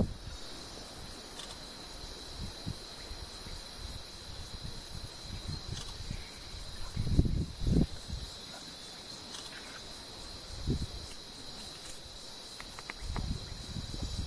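Steady high-pitched chorus of insects buzzing, with a few short low thumps, the loudest about seven seconds in and again near the end.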